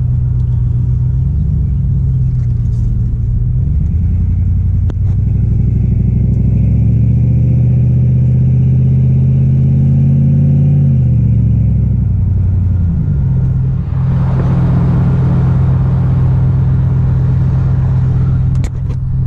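LS-swapped 5.3-litre V8 pickup engine with a muffled exhaust, heard from inside the cab while driving. It revs up a few seconds in, holds there, then eases off again. From about the middle to near the end a rushing noise sits over the engine.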